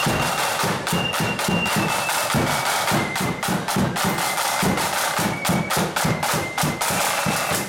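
Marching flute band playing: side drums rattle out a rapid, dense beat over a bass drum, while the flutes hold high notes above. The music breaks off at the very end.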